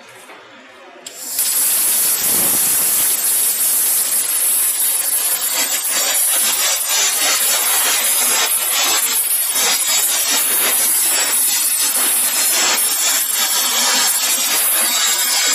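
CNC gantry machine's plasma torch striking its arc about a second in and cutting steel plate: a sudden loud, steady hiss with a rapid crackle.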